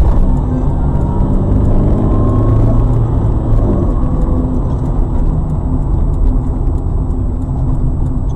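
A car's engine and road rumble from a moving vehicle, steady and low.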